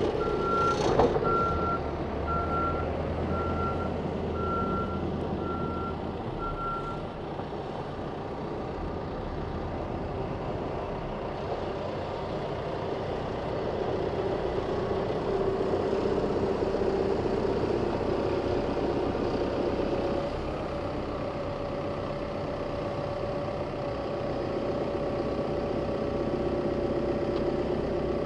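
Caterpillar 416F backhoe loader's diesel engine running as it works, with its reversing alarm beeping steadily until it stops about seven seconds in.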